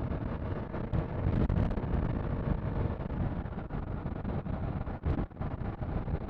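Wind buffeting a microphone inside a motorcycle helmet while riding, a loud uneven rumble with a brief lull about five seconds in. The engine of the Kawasaki KLR 650 runs steadily underneath.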